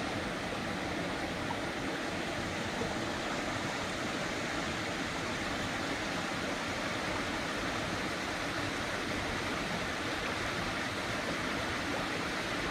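Steady rush of flowing water, unbroken and even, with no distinct events.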